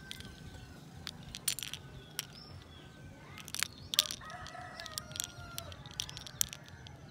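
A rooster crows once, a held call about four seconds in, over a scatter of light metallic clicks and clinks from keychain rings and charms being handled.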